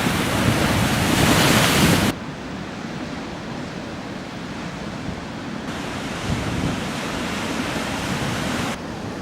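Rough winter sea surf, waves breaking and rushing, with wind buffeting the microphone. The sound is loudest and hissiest for the first two seconds, then drops abruptly to a lower rumble of surf, brightening again for a few seconds after the middle.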